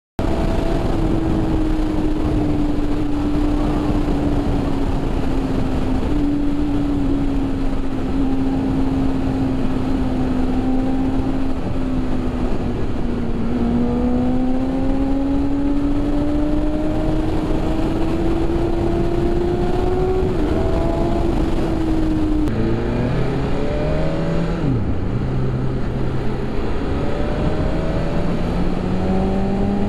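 BMW S1000RR motorcycle's inline-four engine pulling at steady road speed under loud wind rush, its pitch drifting down and then climbing slowly as the bike speeds up. Past the middle the revs drop sharply and the note changes to lower, stepping tones as the rider changes gear, then climbs again near the end.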